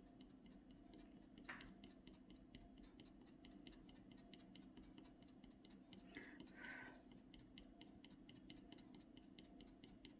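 Scratch tool working across the clay surface of an Ampersand scratchboard in short, quick strokes, scraping off the black Indian ink: faint, rapid ticks, several a second.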